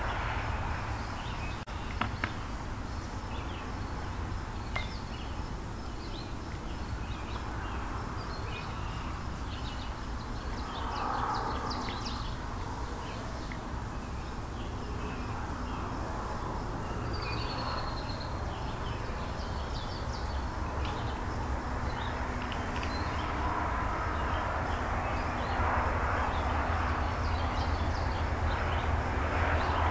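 Small birds chirping, in many short, scattered high calls, over a steady low rumble of outdoor background noise.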